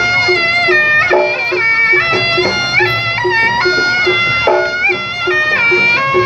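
Reog gamelan music: a slompret, the shrill double-reed shawm of Reog, plays a wailing melody that steps between held notes, over a quick, steady pulse of percussion about four or five beats a second.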